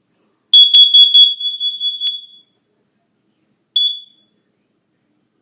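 Kidde 30CUAR-V combination smoke and carbon monoxide alarm sounding during its self-test: a loud, high-pitched burst of about four rapid beeps that trails off, then a single short beep a few seconds later. It is the alarm's carbon monoxide warning, following its spoken "Warning, carbon monoxide".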